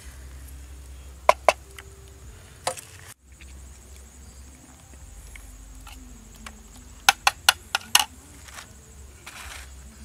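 Knife chopping pieces of water snake on a round wooden chopping block: two quick chops about a second in and another a little later, then a fast run of about five chops about seven seconds in.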